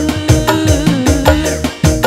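Live dangdut band music: kendang hand-drum strokes in a quick, steady rhythm under a long held melodic note.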